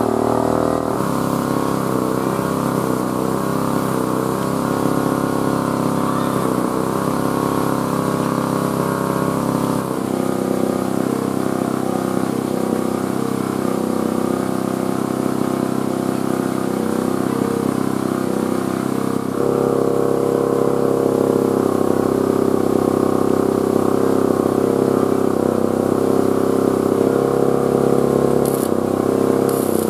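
An engine running steadily, its tone changing abruptly about ten and twenty seconds in.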